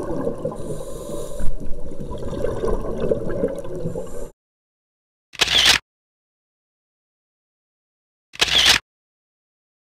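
Underwater camera audio: muffled gurgling water noise that cuts off about four seconds in. Two short hissing bubble bursts follow, about three seconds apart, such as a diver's scuba regulator exhaling.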